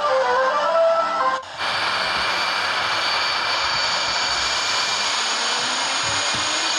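A few short melodic notes, then an abrupt cut about a second and a half in to a steady rushing noise with faint high whistling tones, like a jet engine.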